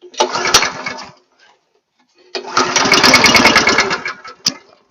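Log splitter's small gasoline engine being pull-started twice: a short burst of cranking, then a second pull that runs with a rapid even beat for about two seconds before stopping. A sharp knock follows near the end.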